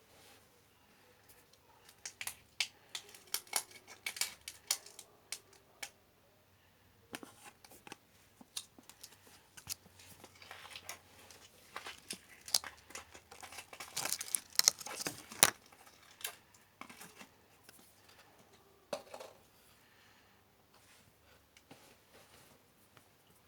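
Slime being mixed and kneaded by hand, giving irregular sticky clicks and crackles that come in clusters and are busiest around the middle.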